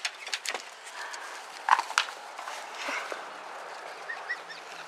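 Irregular clatters and knocks of a bull terrier's paws scrambling on a wooden deck chair and patio, the loudest pair about two seconds in.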